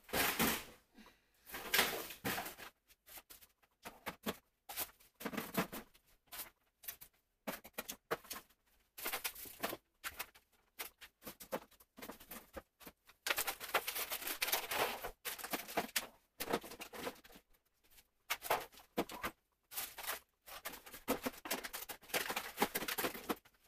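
Rustling and clatter of frozen food packages and plastic bins being handled and arranged in a pull-out freezer drawer, coming in irregular stops and starts.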